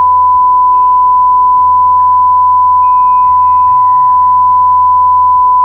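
A loud, steady single-pitched beep tone of about 1 kHz, a censor bleep blanking out the end of a spoken sentence, with faint background music beneath it.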